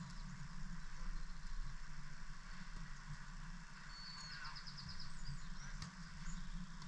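Outdoor ambience: a steady low hum and background hiss, with a bird's short trill of quick repeated notes about four seconds in.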